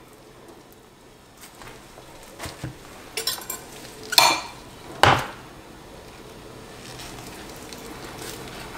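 Kitchenware being handled on a cutting board: a few light knocks, then two sharp clinks about four and five seconds in, the second the loudest, as a ceramic mixing bowl is set down on the board.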